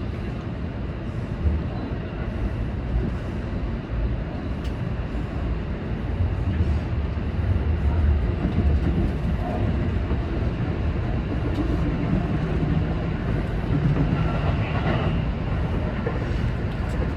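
Seibu 20000 series electric train running between stations, heard from inside the front car: a steady rolling rumble with a few short clicks in the first few seconds. The low rumble gets louder about six seconds in.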